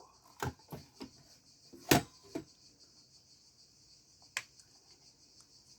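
A handful of short, sharp clicks and pops scattered over a few seconds, the loudest about two seconds in, over a steady faint high hiss.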